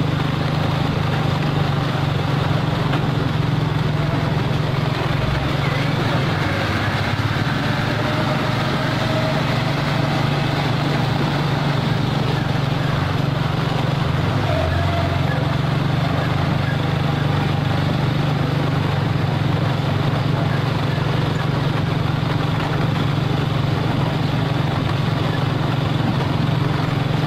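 Steady drone of vehicle engines with road noise on a gravel road, as a loaded Mitsubishi Fuso self-loader truck runs close by.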